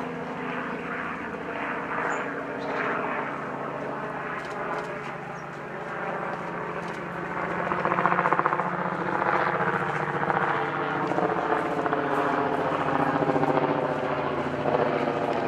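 A large engine droning steadily, a stack of low steady tones with a fine even throb, growing louder about seven seconds in and then holding.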